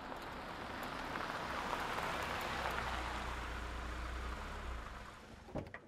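A car driving up and slowing to a stop, its tyres hissing on the pavement under a low engine rumble. The sound swells and then fades, and a couple of sharp knocks come near the end.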